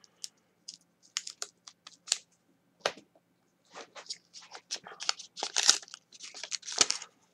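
A roll-off goggle's film roll and plastic spindle being handled and fitted: scattered small plastic clicks, then from about four seconds in a denser run of crinkling from the thin clear film.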